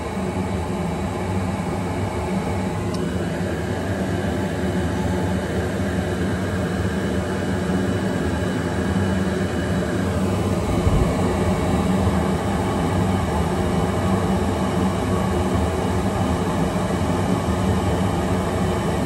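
Okamoto ACC-818NC surface grinder running steadily, a low machine hum with a higher whine that changes pitch about three and ten seconds in as the wheel head is jogged into position. A brief low bump comes about eleven seconds in.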